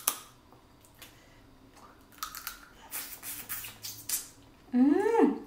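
Crawfish shells being cracked and pulled apart by hand: a sharp crack at the start, then a run of crackling, crunching noises, and near the end a short hum from the eater that rises and then falls in pitch.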